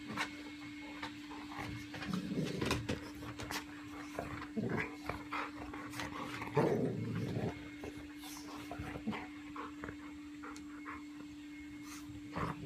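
Two golden retrievers play-fighting: irregular short dog noises and scuffling on a wooden deck, the loudest burst about six and a half seconds in.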